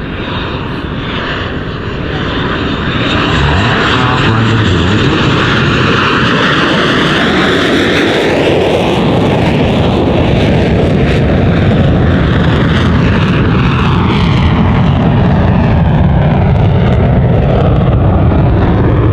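McDonnell Douglas F/A-18 Hornet's twin jet engines roaring as the jet flies past. The roar swells about two to three seconds in and stays loud, with slowly sweeping tones as the aircraft passes.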